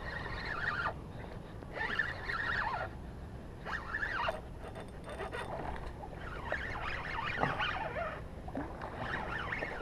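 Spinning reel being cranked in short, irregular bouts while reeling in a hooked ladyfish, over a steady low rumble of wind and water.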